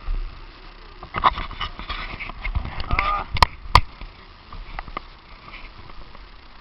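Irregular knocks and taps of a phone being handled against its microphone, with two sharp clicks close together about three and a half seconds in.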